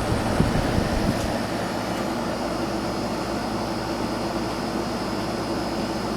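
1988 Sears Kenmore 6000 BTU window air conditioner running steadily on low cool: the compressor and fan hum under a steady rush of air, with the compressor settled after its first startup. A low rumble in the first second or so then fades.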